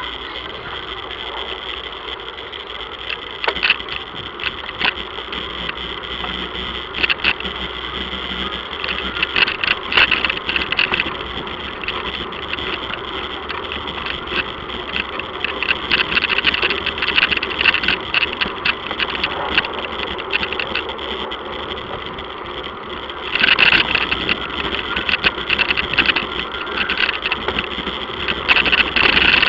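Bicycle ride over rough, cracked paving: a steady rolling noise with the bike rattling and clicking over the bumps, the rattle growing louder in stretches and most strongly about three-quarters of the way through.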